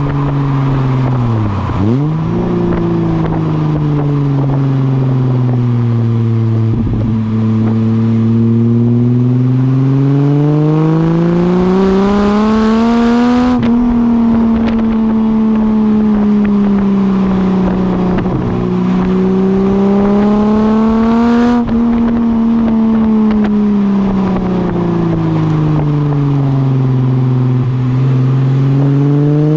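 Ford AU Falcon's inline six, through extractors and a 2.5-inch catback exhaust with a centre muffler, pulling up through the revs on throttle. Twice it lifts off and the revs wind down, then it climbs again. About two seconds in, the revs dip sharply and pick back up.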